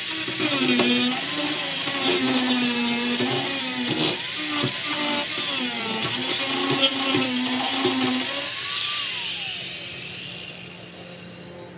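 Handheld power tool running, its pitch wavering as it runs, then winding down with a falling whine about nine seconds in.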